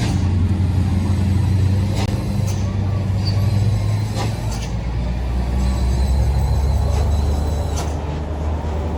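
Heavy vehicle engine labouring on a steep climb with a steady low drone, its note dropping a little about halfway through, and a few short sharp clicks or knocks over it.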